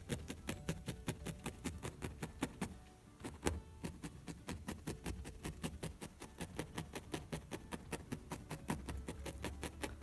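Coarse black-tipped felting needle stabbing wool roving into a felt backing on a felting mat: a quick run of soft ticks, about four or five a second, with a short break about three seconds in.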